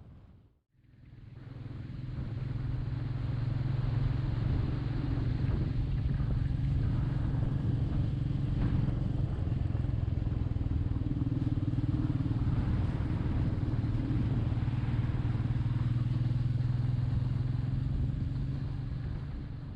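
Royal Enfield Meteor 350's single-cylinder engine running at a steady pitch while riding, fading in just under a second in.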